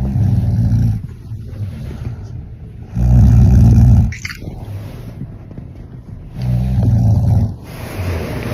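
A sleeping person snoring loudly: three deep, rasping snores about three seconds apart, each lasting about a second, with quieter breathing between them.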